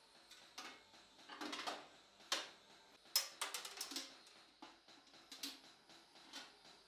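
Light metallic clicks, clinks and scrapes of polished steel armour being handled as a helmet's visor is worked free at its side pivot and lifted off, with two sharper clinks about two and three seconds in.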